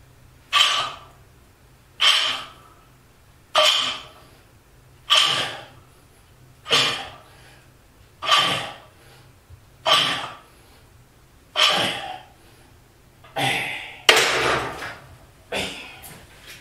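A man breathing forcefully through a set of barbell bench presses, one sharp breath about every second and a half. The breaths near the end run longer as he finishes the set.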